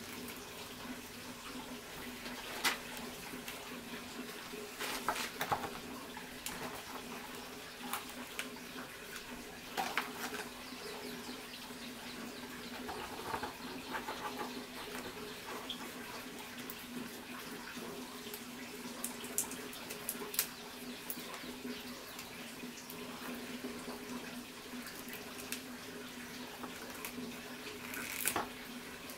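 Light rustling and a few sharp little taps from hands tying pieces of smoked meat and leaf-wrapped bundles with thin bamboo ties. Underneath runs a steady hiss with a low hum.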